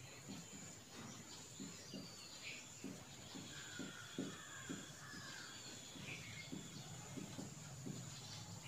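Faint bird chirps and a steady high tone in the background, with soft irregular strokes of a marker writing on a whiteboard.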